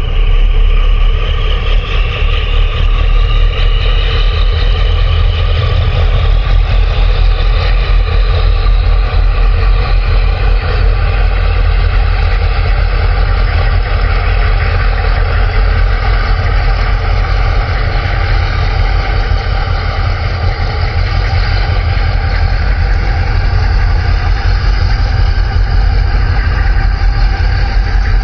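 Boat engine running steadily, a loud continuous drone with a deep low rumble underneath.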